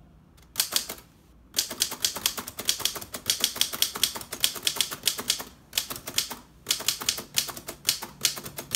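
A 1928 Underwood Portable three-bank typewriter being typed on: a few keystrokes about half a second in, a short pause, then fast, steady typing of rapid type-bar strikes with brief breaks.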